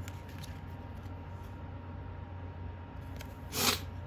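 Tarot cards being handled during a flip-through: faint soft clicks over a steady low hum, and one brief swish of a card being slid or turned about three and a half seconds in.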